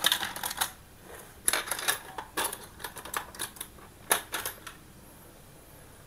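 Light clicks and rattles of a Daiwa PR100L baitcasting reel's plastic side frame and small metal parts being handled, coming in several short, quick clusters.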